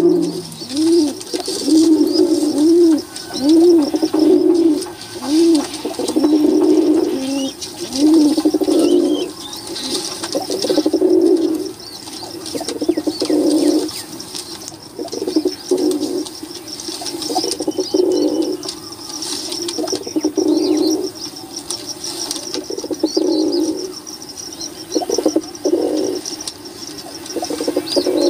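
A flock of domestic pigeons cooing. The first few seconds bring a regular run of rising-and-falling coos, more than one a second, followed by denser, overlapping cooing from several birds, with fainter high chirping over it.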